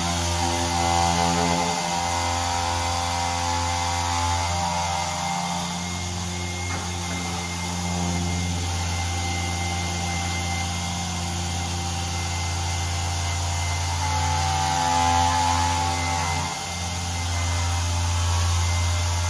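Small handheld car polisher with a foam pad running against a painted door panel during a fine finishing-polish pass. It is a steady motor hum whose pitch shifts slightly a few times.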